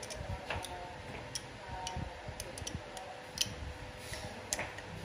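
Scattered light clicks and taps, irregularly spaced, of tools and small parts being handled during work on a scooter, over a faint steady hum.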